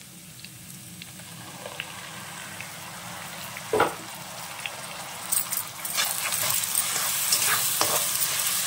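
Chopped ridge gourd frying in oil in a pan, a soft sizzle at first. Just under four seconds in there is a dull thud as a dollop of wet mustard paste goes in, and from about five and a half seconds the sizzling turns louder and brighter, with a spatula scraping and clicking against the pan as the paste is stirred through.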